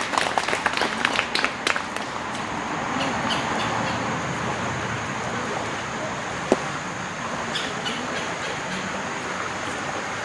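Scattered hand clapping from a small group that dies away within the first two seconds, then a steady outdoor hiss and rumble, with a single sharp click about six and a half seconds in.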